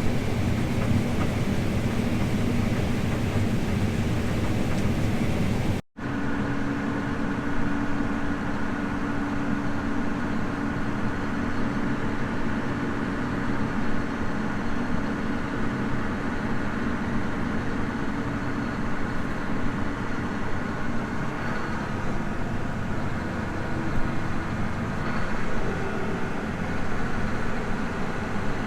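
Heavy farm machinery engine running steadily. The sound cuts out for an instant about six seconds in, then continues as a steady hum with a held tone.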